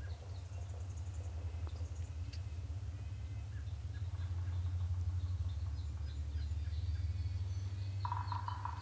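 Steady low rumble with faint, scattered bird chirps; near the end a rapid, rattling turkey call starts and runs on.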